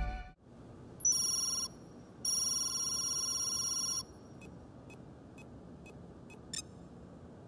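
Electronic interface tones from a handheld testing tablet. A short tone, then a steady tone of about two seconds, then six quick high beeps, the last ones closer together.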